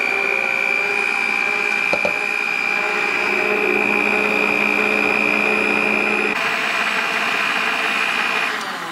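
Electric mixer beating cake batter, a steady high motor whine; the sound turns noisier about six seconds in, and near the end it is switched off, its pitch falling as it spins down.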